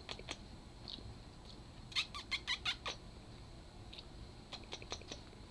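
Kittens scuffling and scrambling while they wrestle: three bursts of quick ticks and scratches. The loudest burst, about eight ticks in under a second, comes about two seconds in.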